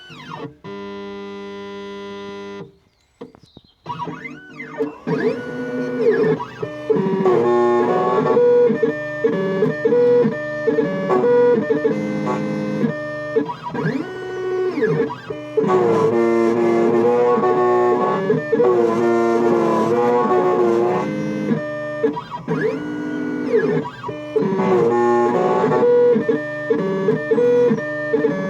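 Background guitar music with a steady beat. It starts a few seconds in, after a steady tone that lasts about two seconds and then a short gap.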